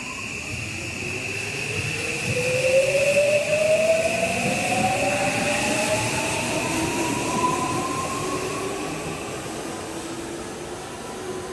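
Odakyu commuter electric train pulling out of the station: its traction motors whine, rising steadily in pitch as it picks up speed, with a steady high tone above and running noise that peaks a few seconds in, then fades.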